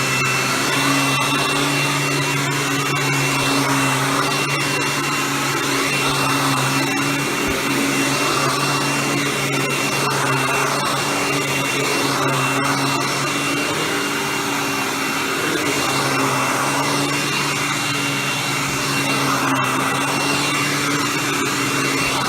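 Hoover Tempo Widepath upright vacuum cleaner running steadily on its TTI-made motor: a constant high-pitched whine over a low hum.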